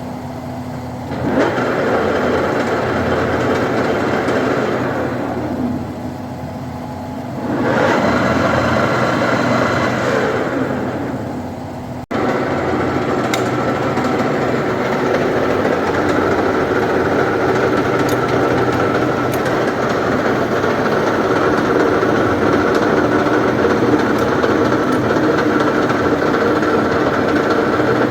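1K625D screw-cutting lathe running with a steady mechanical hum and whine. The sound swells and dips twice in the first twelve seconds, breaks off abruptly about twelve seconds in, then runs steadily.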